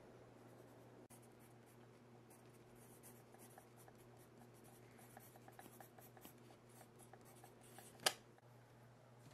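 Faint scratching of a writing implement on a notebook page, in many short strokes of handwriting. About eight seconds in there is a single sharp tap.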